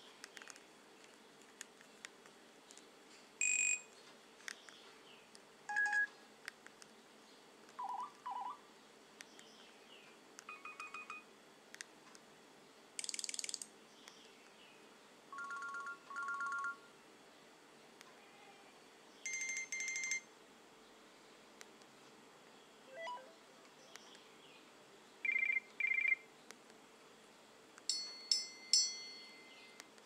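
Nokia Asha 302 phone speaker playing brief previews of its built-in ringtones one after another as each is highlighted in the list. There are about ten short melodic snippets, each about a second or less, cut off after a second or two of quiet before the next one.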